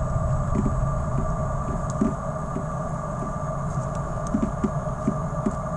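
Steady electrical hum and whine in a GoPro camera's audio, interference from the Karma Grip gimbal it is mounted on.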